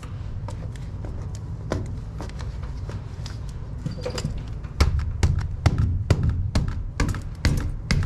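Rubber no-hub coupling with stainless steel band clamps being handled onto the cut end of a cast iron drain pipe: a run of sharp clicks and knocks, several a second, starting about five seconds in, over a steady low rumble.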